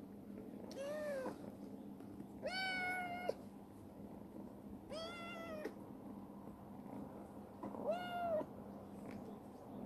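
Kitten meowing four times while being stroked, each meow a short, even call of under a second, about two and a half seconds apart. The meows come as it is being affectionate, seeking attention.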